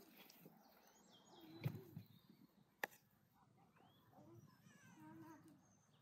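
Near silence of a quiet yard, broken by two short sharp knocks a little under two seconds and about three seconds in, with faint animal calls in the second half.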